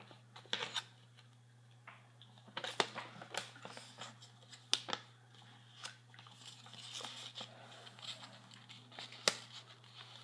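Paper shop receipt being handled and unfolded close to a phone microphone: irregular crinkling and rustling with scattered sharp clicks and taps.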